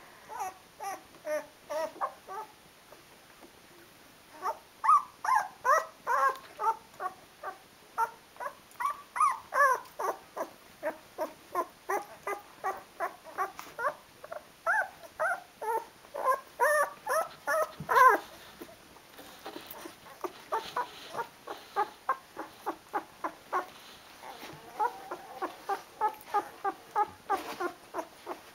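Twelve-day-old Rhodesian Ridgeback puppies whimpering in short, high squeaks, about two or three a second, with a brief pause a few seconds in and one louder cry past the middle.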